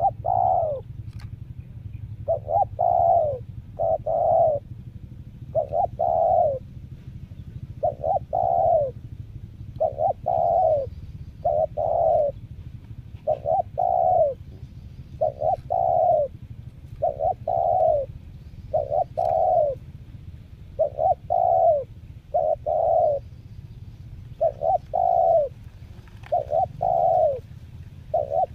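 Spotted dove cooing over and over: short groups of falling coo notes, repeated about every one and a half to two seconds.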